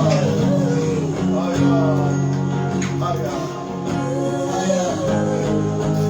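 Slow worship music: held low chords with a plucked and strummed acoustic guitar, and a melody line gliding above them.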